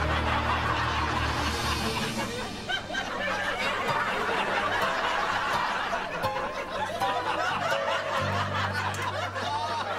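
People laughing and chuckling over background music with a bass line.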